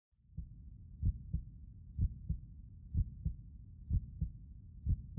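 Heartbeat, a low double thump (lub-dub) repeating about once a second over a soft low rumble, starting a moment after silence.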